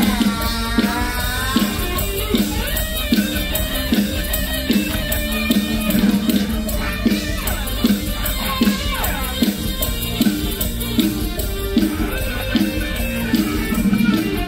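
Live Isan mor lam band music played loud through stage speakers, with a steady beat and a singer's voice gliding over it.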